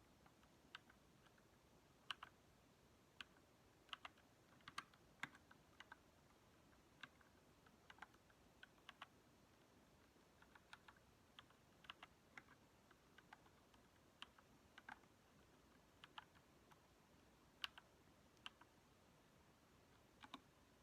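Keychron K2 mechanical keyboard being typed on very slowly: single keystrokes clicking one at a time at an uneven pace, often with gaps of a second or more between keys.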